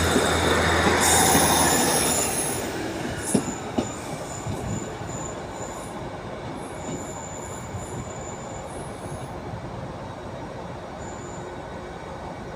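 Class 150 Sprinter diesel multiple unit pulling away, its engine hum fading as it moves off. Wheels click sharply twice over rail joints, with thin high wheel squeal coming and going under a steady rolling rumble.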